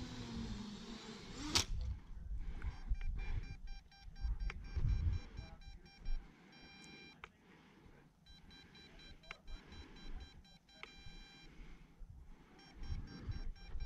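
A sharp knock about one and a half seconds in, after which the running engine and hiss stop. Repeated electronic beeps then come and go over low rumbling and thumps.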